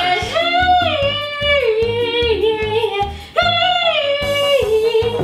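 Background music: a high sung vocal holding long notes that slide downward, over a steady beat.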